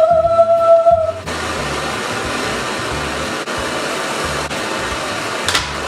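A held tone for about the first second, then a blowtorch flame hissing steadily as it heats a knife blade.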